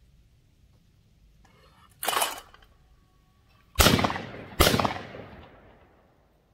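A clay thrower flings a target with a short rushing sound about two seconds in. Then a Tristar Trinity 16-gauge over-and-under shotgun fires both barrels, two shots less than a second apart, each fading out slowly.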